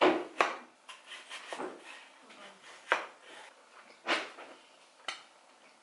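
Kitchen knife chopping peeled melon into chunks on a plastic cutting board: about six sharp knocks of the blade on the board, spaced irregularly about a second apart.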